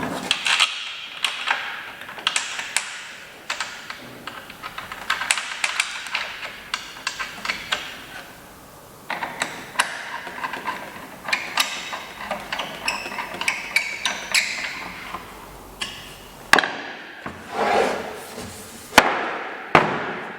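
Irregular knocks, taps and clatters of hard objects being handled and set down, with a few louder knocks near the end.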